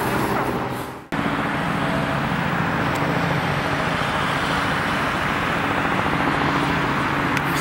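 Robinson R44 helicopter in flight: a steady drone of its six-cylinder Lycoming piston engine and rotor. The sound fades away and cuts back in abruptly about a second in.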